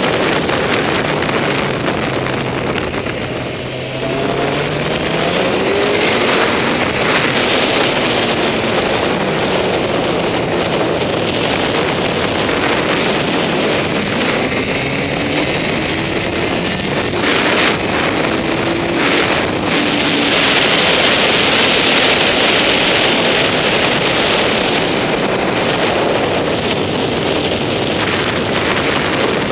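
Honda CBR954RR's inline-four engine running hard on track, its note rising and falling faintly under a heavy rush of wind on the microphone. The sound dips briefly about four seconds in, then picks up again, and is loudest a little past two-thirds of the way through.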